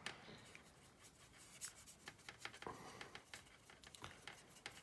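Faint, irregular scratchy ticks of a soft-bristled paintbrush scrubbing and dabbing oil paint over the surface of a plastic scale-model aircraft.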